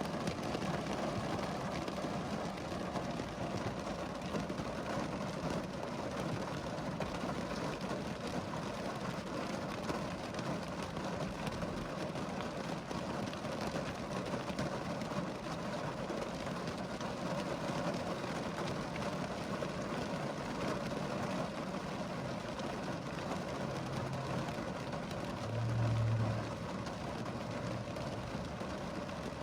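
Steady rain falling, an even patter of many drops. A brief low hum rises over it near the end.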